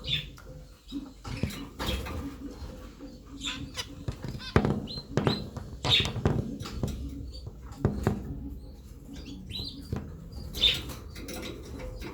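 Zebra finches calling in a cage: short high chirps every second or so, with scattered clicks and knocks.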